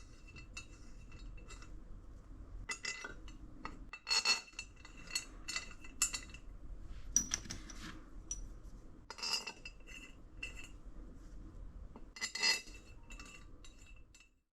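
Metal bolts and tools clinking against the compressor pump head as it is bolted back together: a scatter of sharp metallic clinks with a brief ring, over a low steady hum, cutting off abruptly near the end.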